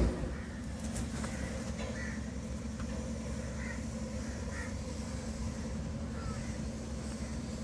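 Steady low hum of a running engine, with a few short, faint bird calls over it.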